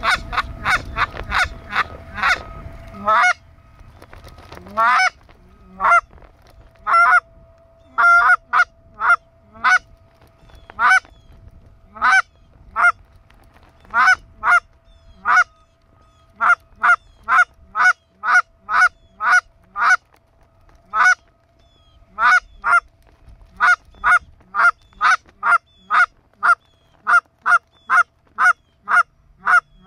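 Repeated goose honks, loud and close, coming irregularly at first, then settling about halfway through into a steady run of about two honks a second.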